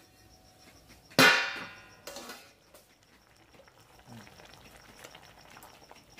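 A metal spatula strikes the metal karai with one loud ringing clang that dies away over about half a second, followed about a second later by a second, quieter knock.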